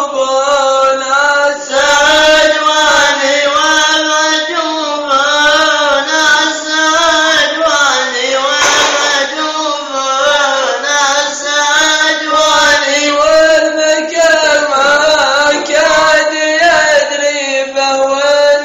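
Male voice chanting a Gulf Bedouin shela in long, slowly bending held notes, with no instruments or beat.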